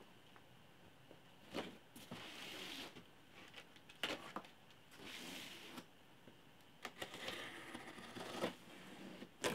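Small box cutter slitting packing tape on a cardboard shipping box: several short rasping scrapes about a second each, broken by sharp clicks and knocks as the box is handled.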